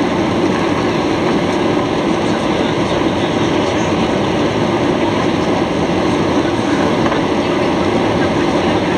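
Cabin noise of a Boeing 737-800 climbing after takeoff: its CFM56 jet engines running with rushing air, a loud, steady noise that does not change.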